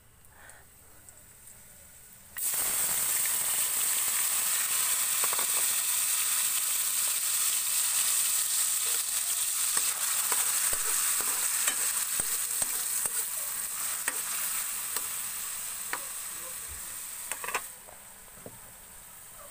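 Chopped tomatoes sizzling loudly in hot oil in a metal wok, being sautéed and stirred with a metal spoon that scrapes and clicks against the pan. The sizzle starts suddenly a couple of seconds in and falls away shortly before the end.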